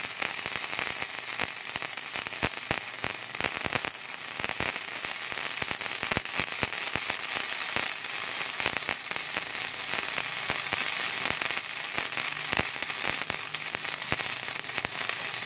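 Gasless flux-core MIG welding arc, a steady crackle full of sharp pops as the wire feeds and burns, with a short dip about four seconds in.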